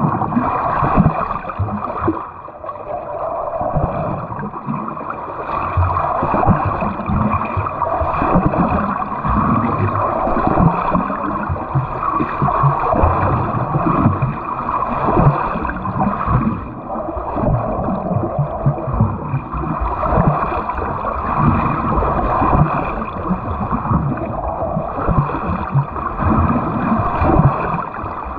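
Pool water splashing and churning as a swimmer swims butterfly-stroke drill, with continual irregular thuds of arms and body hitting the water.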